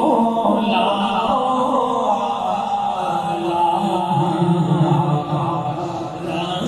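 A man's voice chanting a verse melodically through a microphone and loudspeakers, in long drawn-out notes that rise and fall.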